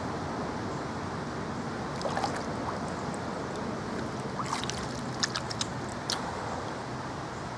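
Lake water splashing and lapping as a released common carp swims off from the angler's hand, with a few short splashes and drips over a steady background hiss.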